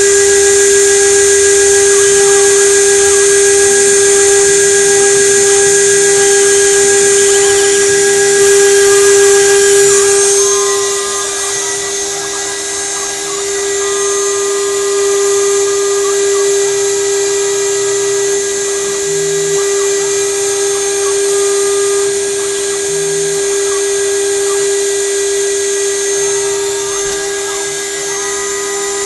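2.2 kW CNC router spindle running with a steady, high-pitched whine while its small engraving bit mills copper-clad circuit board. The whine gets a little quieter about ten seconds in, and short higher-pitched tones come and go over it.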